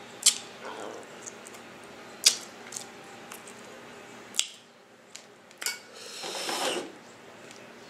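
Eating a seafood boil: several sharp clicks and clinks, like utensils or shells handled at the plate, then a longer noisy sound lasting about a second, about six seconds in.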